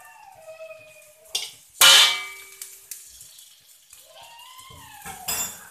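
Metal utensils clanging against a metal wok: one loud ringing clang about two seconds in, and a scraping clatter near the end. A cat meows at the start and again about four seconds in.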